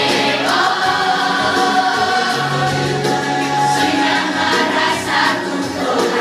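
A large group of young people singing together in chorus, holding long sustained notes.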